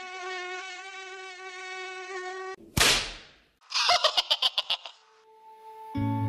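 Mosquito buzz sound effect: a thin whining buzz that wavers in pitch for about two and a half seconds. It ends in a sharp loud hit, then a quick rattle of about ten clicks, and music comes in near the end.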